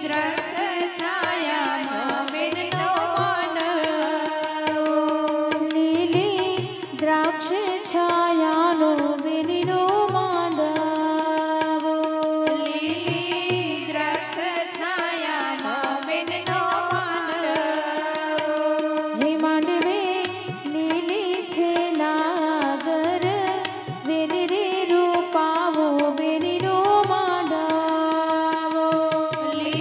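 Women singing a Gujarati wedding song (lagna geet) into microphones over an amplified sound system. A Yamaha electronic keyboard holds a steady drone note under them, and a regular percussion beat runs through, with short breaks between sung phrases.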